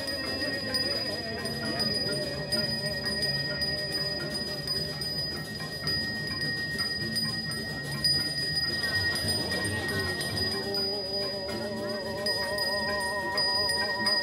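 A small ritual handbell ringing continuously, a steady high ring, with chanting voices that waver in pitch and grow clearer near the end.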